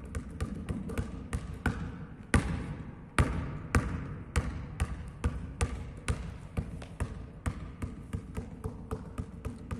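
Basketball dribbled without a break on a sports hall floor: quick low bounces, about three or four a second, with a stretch of harder, slower bounces a couple of seconds in.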